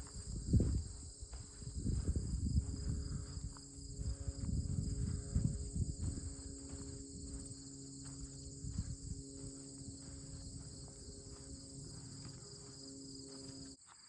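Steady insect chorus, a continuous high-pitched trill, with irregular low rumbles on the microphone that are loudest in the first half. Everything drops away suddenly just before the end.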